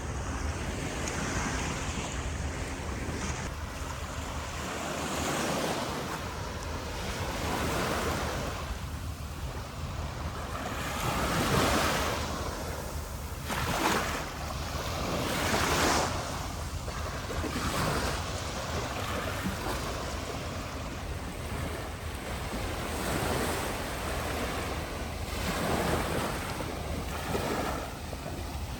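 Sea waves breaking and washing up the shore, each surge swelling and fading every few seconds, with wind buffeting the microphone underneath.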